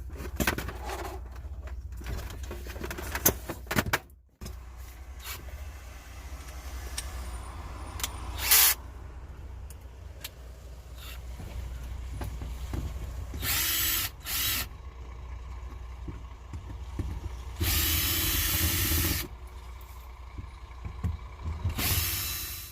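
Handheld power drill run in several short bursts, the longest about a second and a half, over a steady low hum. Scattered clicks and knocks come in the first few seconds.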